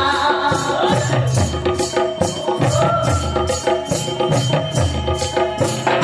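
Indian folk dance music from Bastar: a steady percussion beat over a repeating bass line, with a wavering melody line on top.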